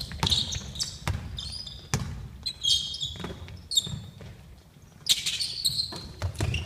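Basketball bouncing on a hardwood gym floor during play, a series of sharp knocks, with high sneaker squeaks as players cut and stop. The game quiets briefly about four seconds in.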